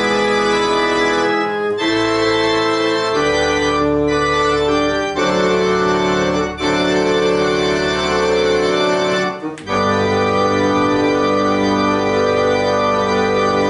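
Organ playing slow, held chords that change every second or two, ending on one long chord near the end.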